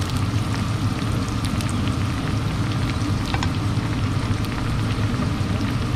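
Wontons deep-frying in hot oil in a small metal pan: a steady sizzle, with a few light clicks through it.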